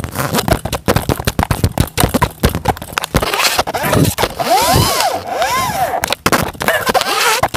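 Handling noise from a phone held close against surfaces: rapid crackling, scraping and knocking on the microphone. About five seconds in, two short squeals rise and fall in pitch.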